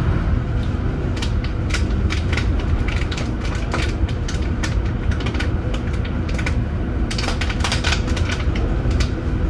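Leyland Atlantean double-decker bus under way, its rear-mounted Leyland O.680 diesel running with a steady low drone. Over it the Alexander body rattles and clicks in irregular clusters, busiest about a second in and again near the end.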